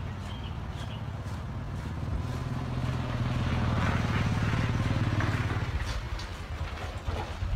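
Wet squishing of hands scrubbing a shampoo-lathered scalp, while a vehicle engine's low hum swells to its loudest about halfway through and then fades, as if passing by.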